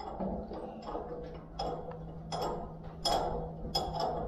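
Irregular metallic clicks and clinks, about ten in four seconds, the loudest about three seconds in, like hand tools knocking against metal engine parts, over a faint steady low hum.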